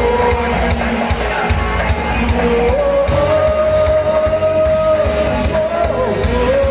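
Videoke singing: a voice sings along to a backing track with a steady bass beat, holding one long note for about three seconds partway through.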